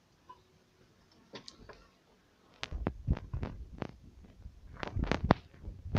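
A few faint clicks, then from about two and a half seconds in a run of sharp knocks over a low rumble: handling noise and footsteps as the phone is carried.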